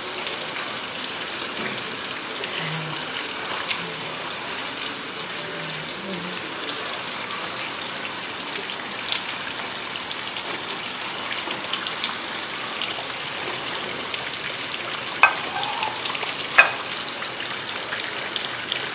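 Steady heavy rain pouring down, with a few sharp knocks, two of them near the end.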